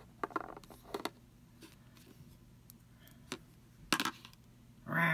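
Scattered light clicks and taps as a heavy metal cocktail ring is picked up and turned between fingers with long nails, metal knocking against nails and the tabletop, with a louder pair of clicks about four seconds in. A short voiced sound from the handler starts right at the end.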